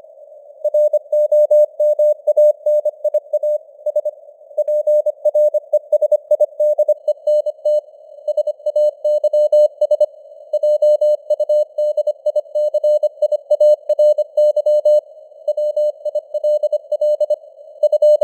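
Morse code at 25 words per minute: a single mid-pitched tone keyed rapidly on and off in dots and dashes, over a faint hiss of simulated radio noise, with the signal strength varying. It begins after a short pause at the start.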